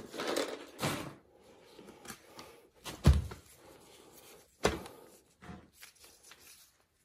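Hand handling of small oil-burner parts and a plastic parts case: a few sharp knocks and clicks, the loudest about three seconds in, with light rustling and scraping between them.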